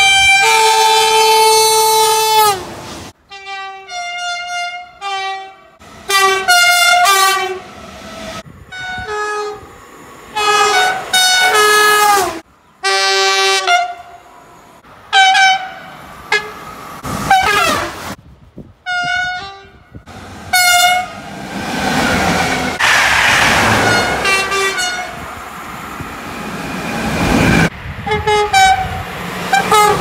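French electric trains' horns sounding in a string of blasts: a long blast at the start that falls in pitch as it ends, then many short blasts. For several seconds past the middle, a train passes close at speed with a loud rushing noise.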